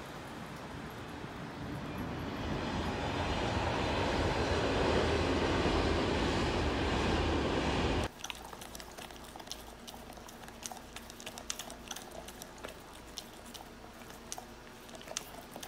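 A train passing on an elevated track: a rushing rumble that builds for several seconds and cuts off abruptly about halfway through. Then a Labrador retriever puppy gnawing on a chew held between its paws, many small chewing clicks.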